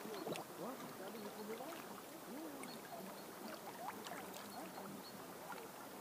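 River water lapping and gurgling in the shallows against a grassy bank, small wind-driven ripples making an irregular run of little plops and gurgles.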